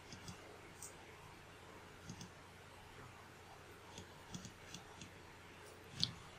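Computer mouse clicking while scrubbing a video editor's timeline: about ten short, scattered clicks, some in quick pairs, the loudest near the end, over faint room hiss.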